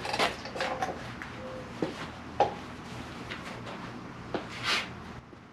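Plastic wire-loom conduit being handled and cut on a car's wiring harness: a few sharp clicks and knocks, and a short rustle near the end.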